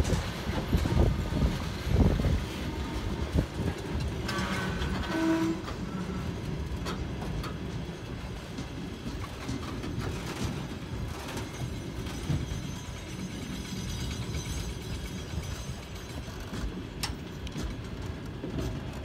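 Railway tank wagons of a freight train rolling past at speed: a steady rumble with wheels clacking over rail joints, the knocks heaviest in the first couple of seconds. A brief steady tone sounds about five seconds in.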